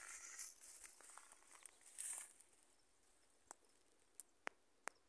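Faint footsteps on dry cut grass and rustling of leafy young eucalyptus plants during the first couple of seconds, then four short, sharp clicks.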